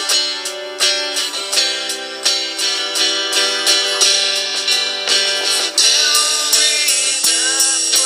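Background music led by guitar, with regular plucked or strummed notes; a gliding melody line comes in during the second half.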